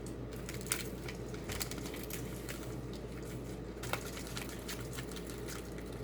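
Light scattered clicks and rustles of a spoon scooping powder out of an opened packet, over a steady low hum.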